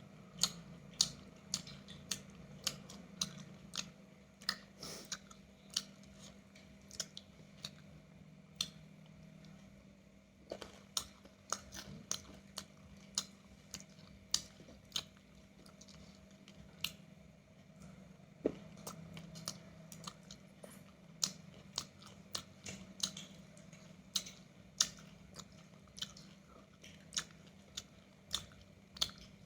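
Close-up mukbang eating sounds: chewing and biting into roasted chicken, with sharp crunches and clicks coming irregularly, one or two a second. A steady low hum runs underneath.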